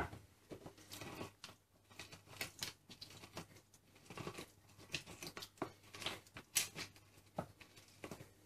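Half a lemon twisted and pressed by hand on a Tupperware plastic citrus reamer: faint, irregular scraping and rubbing with small clicks, the fruit grinding against the ribbed cone as the juice is squeezed out.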